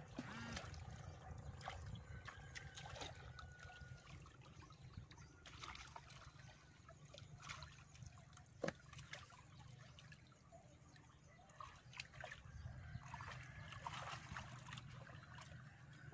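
Faint splashing and trickling of shallow muddy water as hands grope through the mud for shrimp and fish, with small scattered clicks and one sharp knock about nine seconds in.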